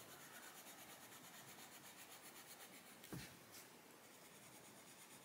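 Faint scratching of a Castle Arts Pasteltint coloured pencil shading on paper, with one soft knock about three seconds in.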